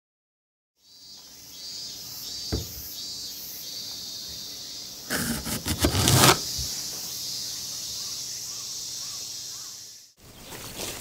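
A kitchen knife cutting through a large, crisp Keisui Japanese pear on a wooden cutting board: a single knock about two seconds in, then a loud string of crisp cracks as the blade splits the fruit, over a steady high hiss. Near the end, footsteps through grass.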